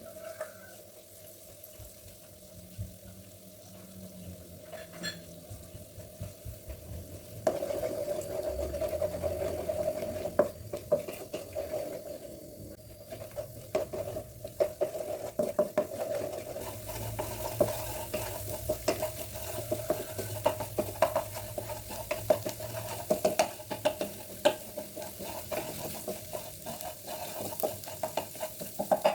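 Food sizzling in a frying pan while a spatula stirs it, with frequent clicks and scrapes of the utensil against the pan. The sizzle gets louder about seven seconds in.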